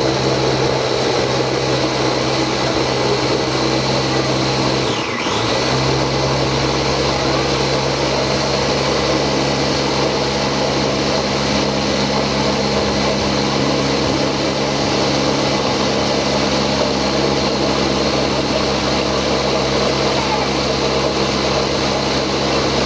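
Electric blender running steadily, grinding spices with a little water into a seasoning paste. It cuts out briefly about five seconds in and then starts again.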